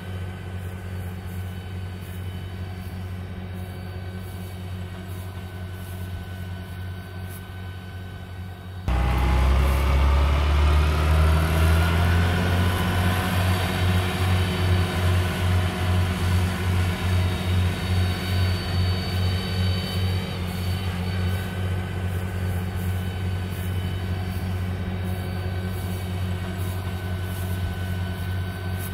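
A steady low hum for about the first nine seconds. Then a tractor engine comes in loud, its pitch rising for a few seconds as the revs and the disc mower drive climb. It settles into steady running with a pulsing beat that fades out.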